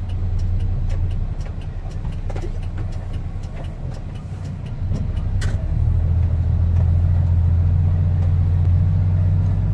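Mitsubishi Fuso truck's diesel engine heard from inside the cab while driving slowly, a low steady drone that gets louder about halfway through as more throttle is given. Scattered light clicks and rattles run through it.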